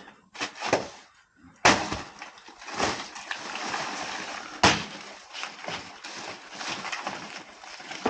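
Machete chopping into the wet, fibrous stem of a matooke banana plant: a few sharp chops, the two loudest about 1.5 s and 4.5 s in, with crackling and rustling of dry banana leaves between them.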